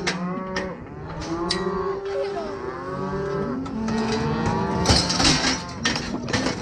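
Cattle bawling, many overlapping moos from cows and calves. A short noisy clatter comes about five seconds in.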